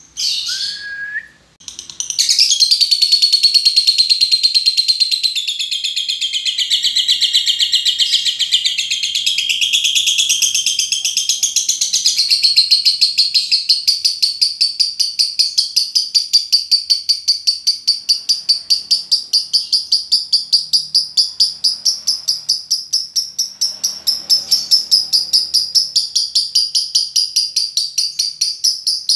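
Lovebird singing a long ngekek: a fast, high-pitched chattering trill of rapidly repeated notes that follows a short call and starts about two seconds in, then runs on without a break.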